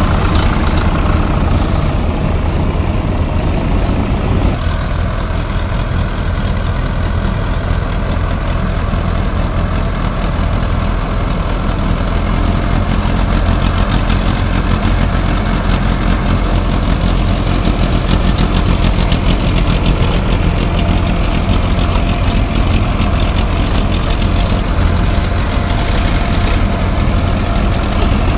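Diesel engine of an ACE DI-6565 tractor running steadily close by, mixed with other tractor engines running.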